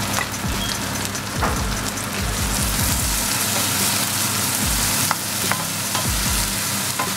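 Sliced onions, spring onions and ginger sizzling in hot oil in a non-stick frying pan, stirred with a wooden spoon that clicks against the pan a few times. The sizzle grows louder about two seconds in.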